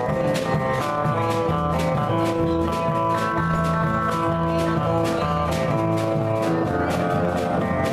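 Small band of electric bass and strummed acoustic guitars playing an instrumental country passage, with a steady strumming rhythm under held melody notes.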